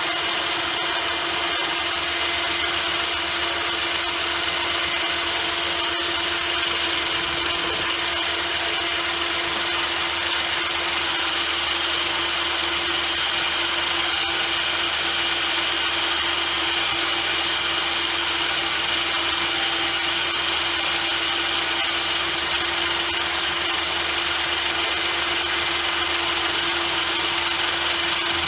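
Small electric grinder running steadily, grinding a steel nail-file blank thinner to make a lock-pick torsion wrench: a constant motor whine under a bright hiss of metal being ground.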